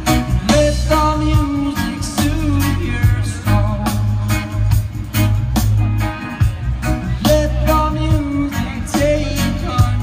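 Live reggae band playing through a PA: a sung lead vocal over heavy bass, guitar and a steady drum beat, heard from the crowd.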